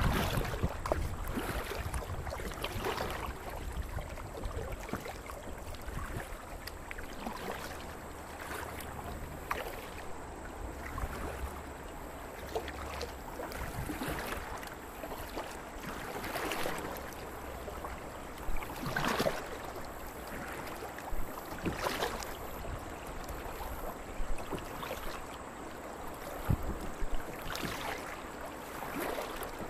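Kayak paddle strokes dipping and splashing in creek water every two to three seconds, over a steady wash of moving water.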